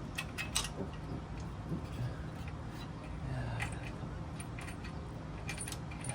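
Scattered light metallic clicks and clinks of small metal parts and hand tools being handled while motorcycle parts are refitted, a few close together near the start and more later on, over a low steady hum.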